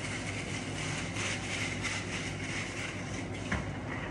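Protective plastic film being peeled off a new glass aquarium and crinkled in the hands: an irregular rustling, with a light knock about three and a half seconds in.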